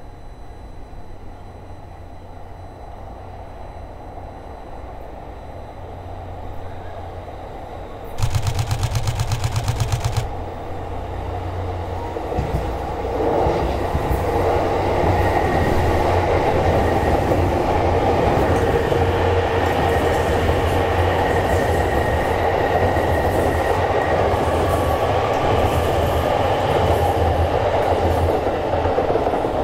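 A train passing close by. It is heard low at first, then runs loud and steady from about halfway in. About a third of the way in, a loud, rapidly pulsing sound lasts for about two seconds.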